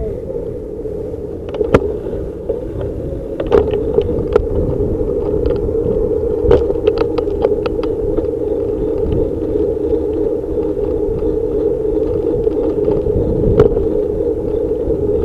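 Riding noise picked up by a camera mounted on a mountain bike's handlebars: a steady rolling hum of tyres and road, broken by several sharp rattles and knocks as the bike goes over bumps, with street traffic alongside.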